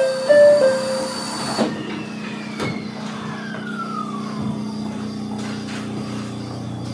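Ueda Electric Railway electric train at a station stop: a short chime of a few stepped notes, then a hiss of air that stops about a second and a half in. A whine then falls slowly in pitch over a few seconds, over the steady hum of the car's equipment.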